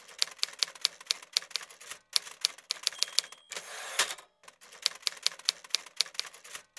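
Manual typewriter keys clacking at about four to five strokes a second. About three seconds in, the margin bell dings and the carriage is swept back with a clunk; after a brief pause the typing starts again.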